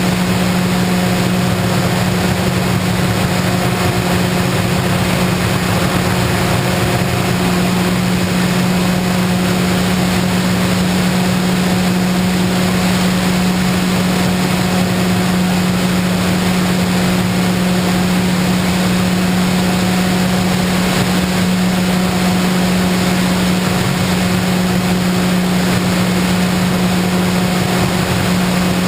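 Electric motor and propeller of an FPV model plane in flight at steady throttle: a constant hum under a rush of air noise.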